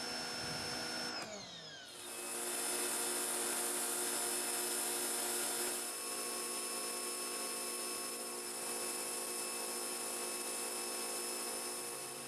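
Portland electric pressure washer's motor and pump running with a steady hum. About a second in it winds down, falling in pitch, then starts up again about two seconds in with the hiss of the high-pressure spray over the hum.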